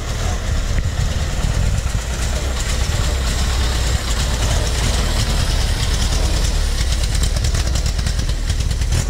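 GAZ-AA 'polutorka' truck's four-cylinder engine running on wood gas from spruce cones, moving slowly past at close range with a steady low engine sound.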